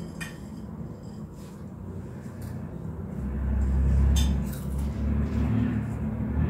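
A few light clinks of a spoon against a plate as puffed rice and cheese are stirred, with a low rumble swelling up about halfway through and easing off.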